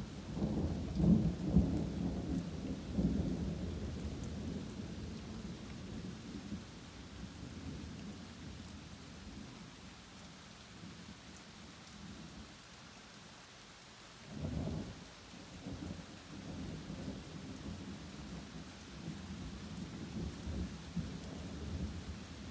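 Thunder rolling over steady rain. A loud rumble in the first couple of seconds fades away over several seconds, a shorter, sharper peal comes about fourteen seconds in, and more low rumbles follow near the end.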